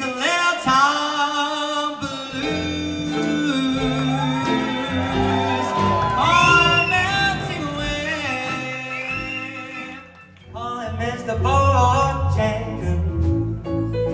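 A male singer singing with a live band: long, wavering vocal notes over guitar and bass. The music drops away briefly about ten seconds in, then comes back.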